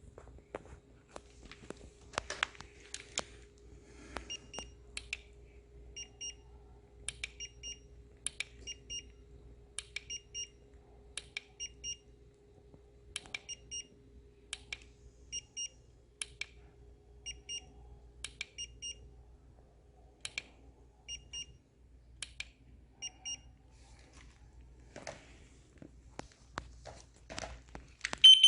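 Faint high electronic beeps in quick pairs, repeating about once a second, over scattered crackles and clicks. A much louder alarm beep breaks in right at the end.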